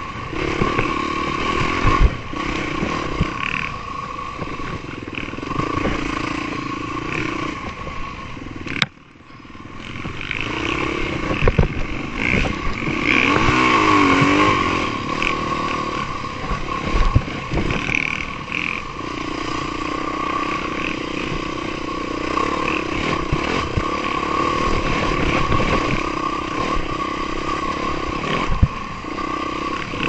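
Yamaha dirt bike engine running and revving with the throttle while riding a rough trail, with occasional knocks and rattles from the bike over bumps. The engine sound drops away sharply about nine seconds in, then builds back up.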